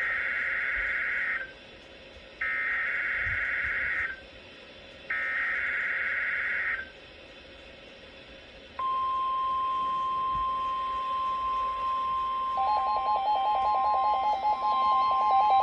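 NOAA Weather Radio Required Weekly Test: three bursts of SAME digital header data, each about a second and a half long with a short pause between. About nine seconds in, the steady 1050 Hz warning alarm tone starts. A few seconds later a second, lower tone pulsing rapidly joins it.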